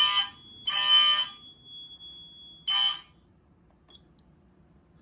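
Fire alarm horns sounding in a temporal-3 pattern: half-second buzzing blasts a second apart, then a pause and one more short blast, over a steady high-pitched tone. Everything cuts off about three seconds in as the system test ends.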